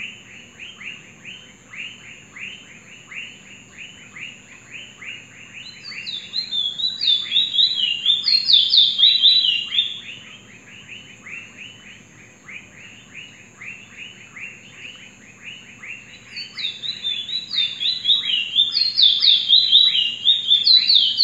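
Caged Trinidad bullfinch (chestnut-bellied seed finch) singing: a fast, steady run of short notes, about four a second. It is broken twice by louder, higher warbled phrases, about six seconds in and again from about sixteen seconds to the end.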